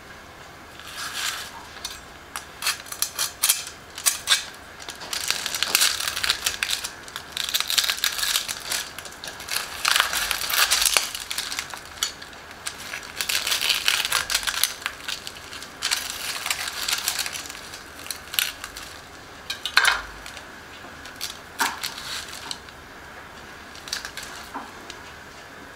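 Crisp skin of a fried pork hock crunching and crackling as a knife saws through it and hands break it apart, in irregular bursts of sharp cracks.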